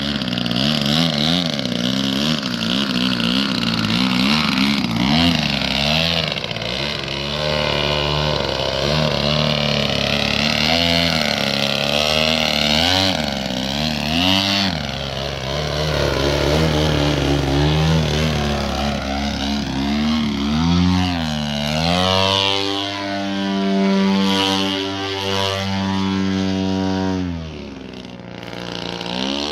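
Piston engine of a radio-control 3D aerobatic model plane, its pitch rising and falling with constant throttle changes through low hovering manoeuvres. From about two-thirds through the pitch holds steadier, and the sound dips briefly near the end as the plane climbs away.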